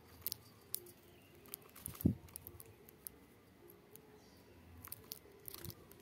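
Small aviary birds feeding, pecking and cracking seed: scattered sharp clicks and taps, with one louder knock about two seconds in.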